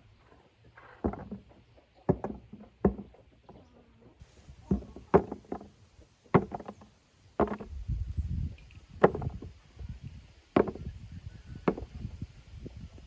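A series of sharp knocks on wood, roughly one a second and unevenly spaced, some with a dull low thud underneath.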